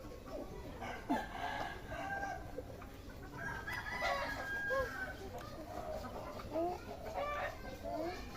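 Several chickens clucking and calling, short overlapping calls throughout.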